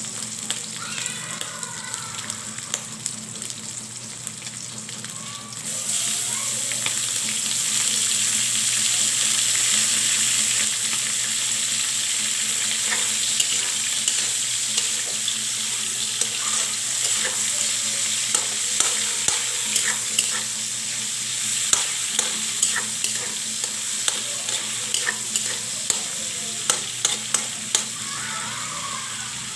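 Pork and vegetables sizzling in a hot kawali (wok), the sizzle suddenly getting louder about six seconds in, with a spatula clicking and scraping against the pan as the food is stirred, the clicks coming more often in the second half.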